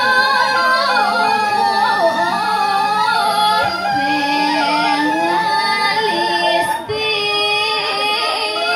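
A woman singing a Balinese geguritan verse solo into a microphone, in long held notes that waver and slide from pitch to pitch.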